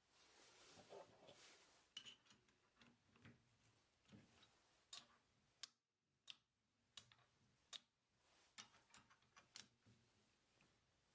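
Faint scattered clicks and taps of metal and wood from a wooden blank being set in a wood lathe's jaw chuck and tightened with a chuck key, after a short rustle at the start. There is no motor sound.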